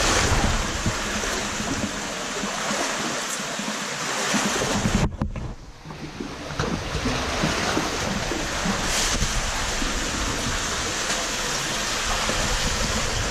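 Water sloshing and splashing steadily as someone wades through a muddy cave stream. The noise dips sharply for about a second, about five seconds in.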